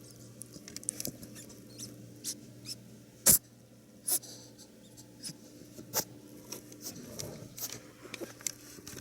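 Pet rabbit at a pepper shaker filled with hay pellets: scattered short, sharp clicks and crunches of nibbling and the shaker being nosed, the loudest about three seconds in.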